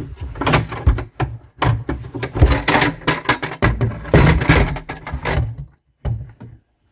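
Irregular clunks, knocks and scraping from plumbing parts being handled and worked loose as the garbage disposal's drain connection is taken apart; no water runs out.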